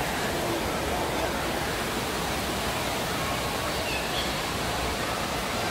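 Steady rush of running and splashing water from a water park's pools and water features, with faint distant voices.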